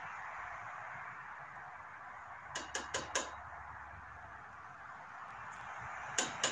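Light hard clicks and taps of hand work on a spark plug being gapped, four in quick succession about two and a half seconds in and two more near the end, over a steady hiss.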